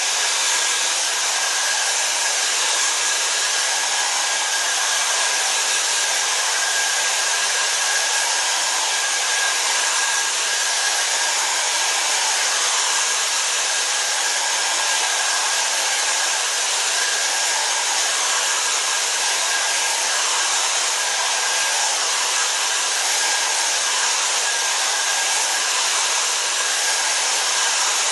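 Hair dryer blowing steadily, an even rush of air with a thin steady whistle, drying freshly applied leather dye.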